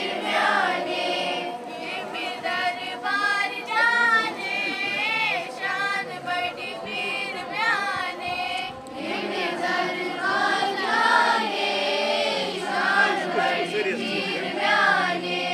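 A group of children singing together in unison, sung phrases rising and falling in pitch, with a short dip about halfway through.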